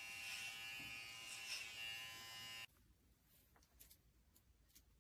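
Electric hair clippers running with a steady buzz and a high whine, stopping abruptly about halfway through; a few faint clicks follow.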